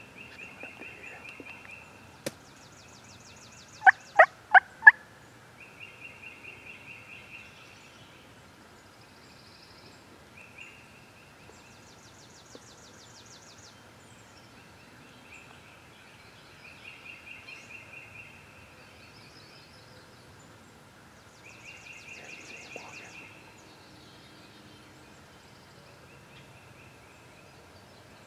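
Four loud wild turkey yelps in a quick, even series about four seconds in, with songbirds giving short high trills again and again in the background.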